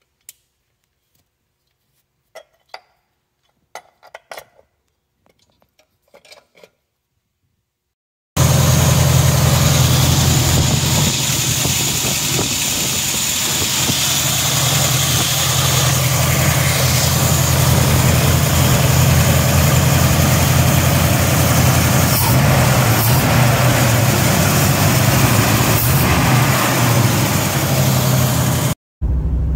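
After several seconds of near silence with a few faint clicks, a Ford 351 Windsor V8 with a mild cam comes in abruptly, already running steadily. It is fitted with a 750 CFM Barry Grant Race Demon carburetor converted from alcohol to gasoline, and the engine is idling on the new carburetor setup.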